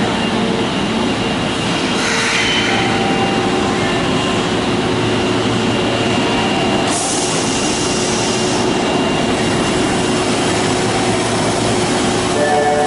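Osaka Municipal Subway 22 series train running at the platform, a steady rumble with wheel noise, and two short bursts of hiss, about two seconds in and about seven seconds in.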